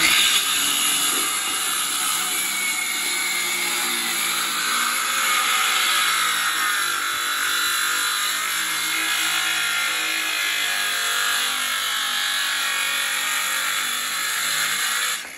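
Corded circular saw cutting along a concrete-stained wooden formwork board, its blade running steadily through the wood. The cut ends and the saw stops just before the end.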